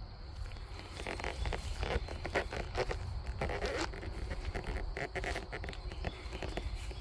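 Footsteps and rustling on dry grass and dirt, short irregular crunches over a low steady rumble.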